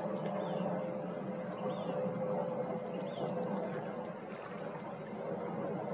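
Small birds calling: a short call repeated about once a second and quick runs of high ticks. Underneath is a steady background hum.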